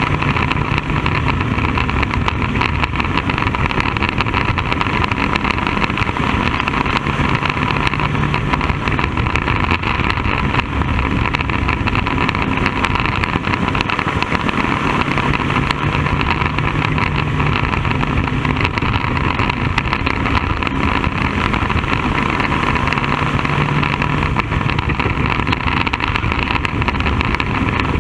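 Bandolero race car's Briggs & Stratton single-cylinder engine running steadily and loud, heard from inside the open cockpit.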